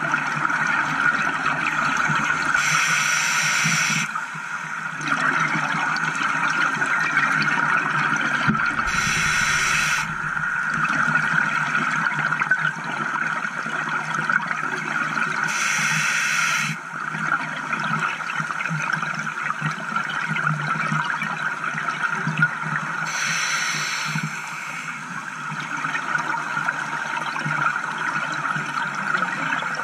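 Scuba diver breathing underwater through a regulator: four hissing breaths, about one every six to seven seconds, over a steady rush of water and bubble noise.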